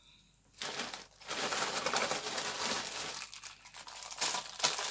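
Plastic packaging crinkling as it is handled, starting about half a second in, with a few sharper crinkles near the end.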